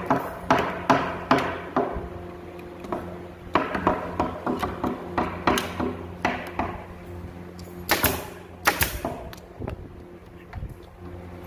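Pneumatic brad nailer firing brads into a wooden cabinet door frame: sharp shots, the two loudest with a short hiss of air about eight seconds in.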